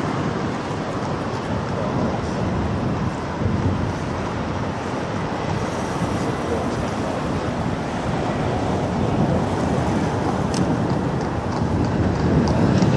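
Steady road-traffic noise and wind on the microphone, with a double-deck electric tram running nearer along the street rails and growing a little louder near the end.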